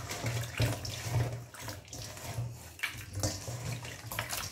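Hands swishing and rubbing small tamban sardines in salty brine in a stainless steel bowl: water sloshing and splashing irregularly, with a few short sharp knocks.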